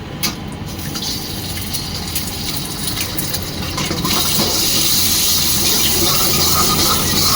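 Hot wok hissing and sizzling, getting louder and brighter about four seconds in, with a few short clicks in the first seconds.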